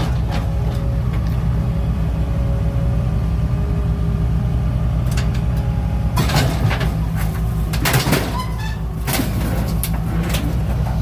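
A heavy engine running steadily, with a few loud metal crashes and scrapes with some ringing about six, eight and nine seconds in, typical of scrap metal being pulled off a trailer by a grapple.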